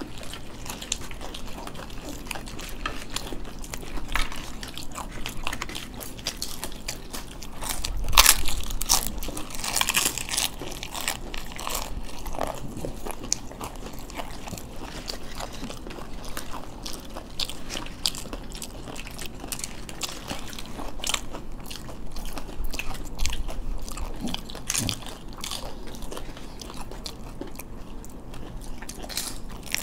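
Several people biting and chewing papdi chaat, its crisp fried wafers crunching in quick, irregular crackles. The crunching is loudest about eight to ten seconds in.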